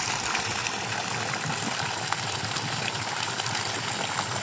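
Water gushing steadily from a deep-well pump's outlet, with a steady low hum under it.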